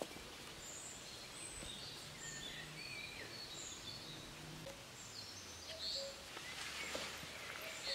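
Scattered bird chirps and calls over a faint steady outdoor hiss, with a few soft rustles and footfalls on grass in the last couple of seconds.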